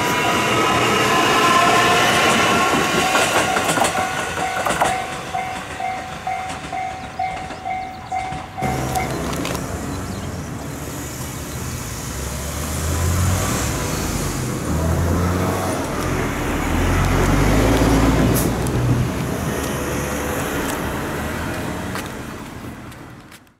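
An electric train pulling away with its motor whine rising in pitch, while a level-crossing bell rings about twice a second. Both stop abruptly at a cut about a third of the way in, after which a low rumble takes over.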